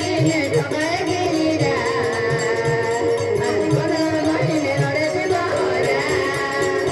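Live Adivasi folk band music: a held, wavering melody line over a steady drum beat.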